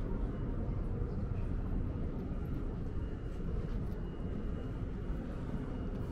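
Steady low rumble of open-air ambient noise, with no distinct events.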